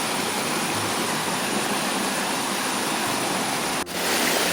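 Steady rushing of water from a small forest waterfall, with a brief break near the end before it carries on.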